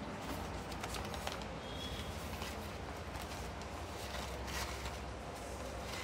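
Soft rustling and a few scattered crinkles and taps as yarn skeins are handled and pushed into a cloth tote bag, over a steady low hum.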